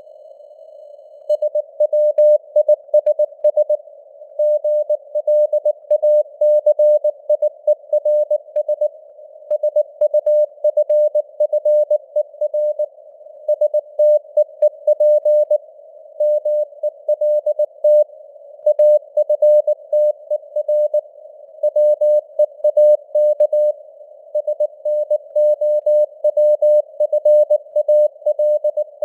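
Morse code (CW) at 19 words per minute: a single steady tone keyed on and off in rapid dots and dashes over a soft hiss, picking up again after a pause of about a second at the start. This is simulated radio reception, with signal strength that varies (QSB fading).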